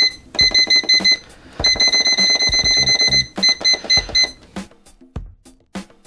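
Electric pressure cooker's keypad beeping as its cooking time is set to 18 minutes: several short runs of quick, high electronic beeps, with one longer unbroken run in the middle, stopping about four and a half seconds in. Background music with a steady beat plays under it.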